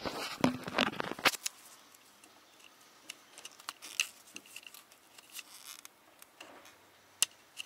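Small screwdriver prying at the metal C-clip on a car blower fan's motor shaft: light, scattered metallic clicks and scrapes, with louder handling noise in the first second and one sharper click near the end.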